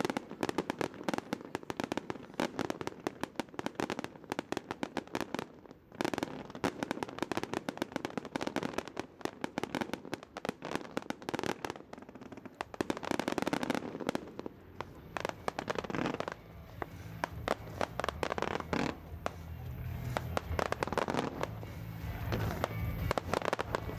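Aerial fireworks display: a dense run of rapid, overlapping bangs and crackles with brief lulls, the crackling of many small bursting stars.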